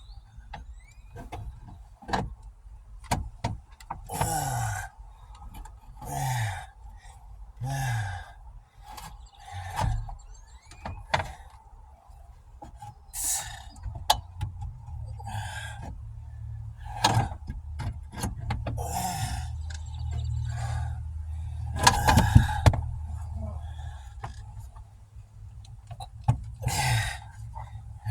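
Clicks, knocks and squeaks of hand tools working at a jammed car alarm unit, in irregular bursts with the busiest stretch about three quarters of the way through.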